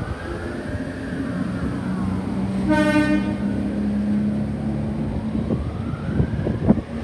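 Red Rattler F-set electric train departing, its traction motors whining in a pitch that rises and falls twice, over a steady low hum. A short horn toot sounds about three seconds in, and a sharp knock comes near the end.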